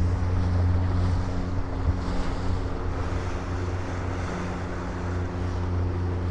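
A steady low engine hum, with wind noise on the microphone.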